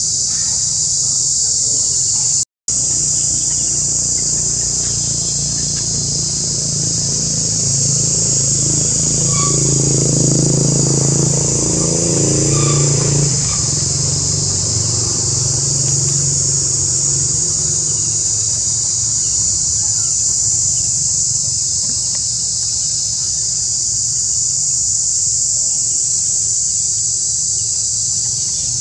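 A steady, high-pitched insect chorus drones throughout, over the low rumble of a vehicle engine that swells about eight seconds in and fades again around fourteen seconds. The sound cuts out completely for a moment near the start.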